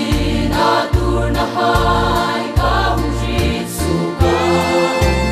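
Mixed choir of men and women singing a Hmar-language gospel song in parts, over an accompaniment with a heavy bass line and a steady beat.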